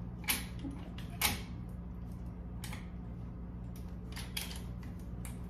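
Metal frame of a folding transport wheelchair clicking and knocking several times as it is handled, with the sharpest knock about a second in.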